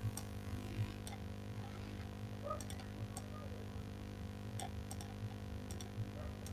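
Scattered faint clicks of a computer mouse, about a dozen spread irregularly, some in quick pairs, over a steady low electrical hum.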